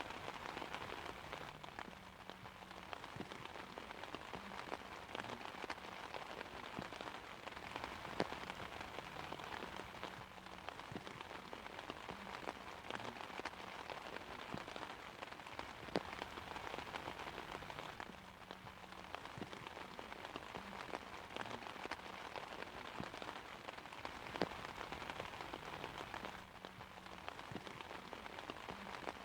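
Steady rain falling on an umbrella: a dense, even hiss of many small drop hits, with a few louder single drops standing out now and then.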